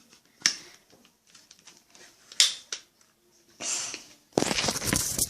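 Sharp plastic clicks from a toy Nerf blaster being handled and triggered, the loudest about two and a half seconds in, followed by close rustling handling noise over the last second.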